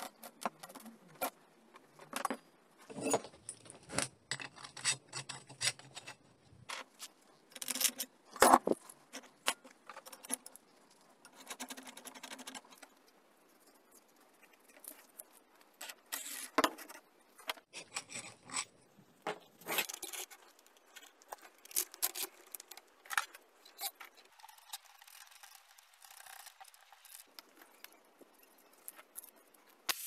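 Small steel parts and hand tools handled on a wooden workbench: irregular clinks, taps and scrapes of bolts, nuts and brackets being fitted and set down, the loudest knocks about eight seconds in.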